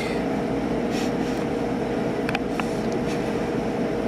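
Steady mechanical hum of the room with a faint steady tone in it, and a few faint ticks a little past halfway.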